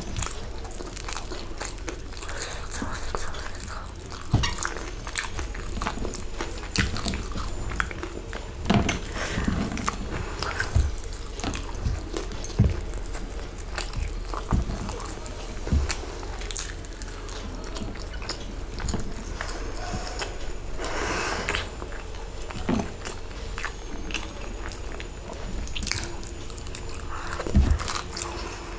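A person biting and chewing samosas close to the microphone: the fried pastry crunches, with irregular mouth clicks and chewing sounds.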